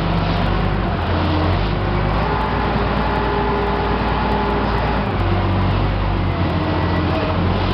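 Wheel loader's diesel engine working hard as it lifts its bucket and dumps the load into a truck bed: a steady, loud low drone whose pitch shifts a few times as the engine speed changes.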